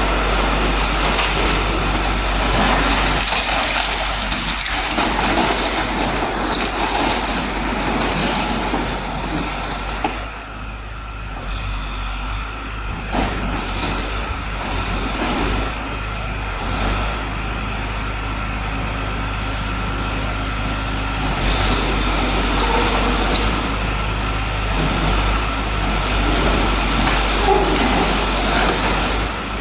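Portable scrap-car baler working: its engine runs steadily under load, with a few sharp metal knocks.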